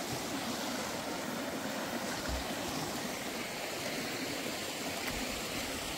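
Small waterfall and rocky mountain stream with a steady rush of water.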